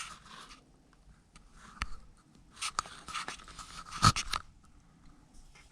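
Hands handling a small plastic RC rock crawler: light rustling and scraping with scattered plastic clicks, the sharpest click about four seconds in.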